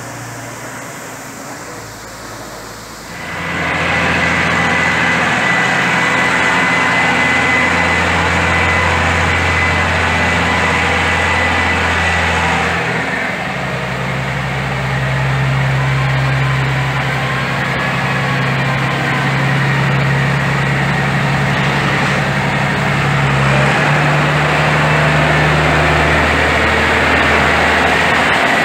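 Diesel engine of a Massey Ferguson tractor running close by. It comes in loud after about three seconds and its engine speed steps up about halfway through, then holds steady.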